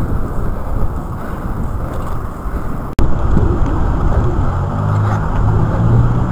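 Wind buffeting the microphone of a bicycle-mounted camera while riding, a rough low rumble, broken by a sudden dropout and click at an edit about three seconds in. In the second half a steady low hum joins.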